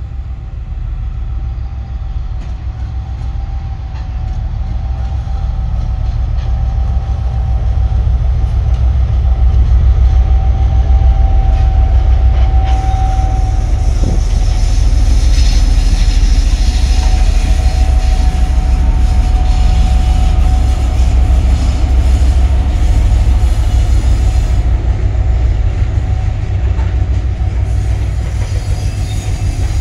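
2M62U twin-section diesel freight locomotive, with two-stroke V12 diesel engines, passing close by under power with a deep, heavy throb. It grows louder over the first ten seconds as it approaches, with a thin steady whine over it that fades about two-thirds of the way through. The freight wagons behind it then roll past.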